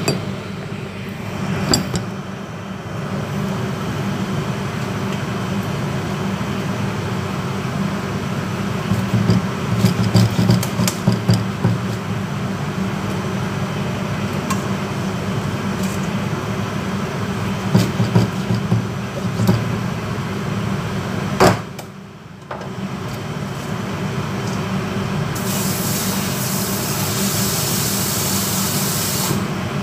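Steady hum of a commercial kitchen's ventilation, with scattered clinks and knocks from handling a stainless steel bowl. Near the end, water runs from the sink tap for about four seconds.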